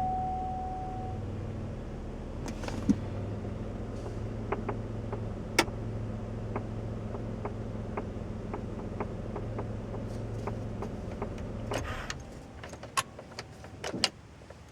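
Light, regular tapping from the dashboard of a 2004 Buick LeSabre, about two taps a second, over the car's steady running hum. Near the end the hum stops and a few louder clicks follow.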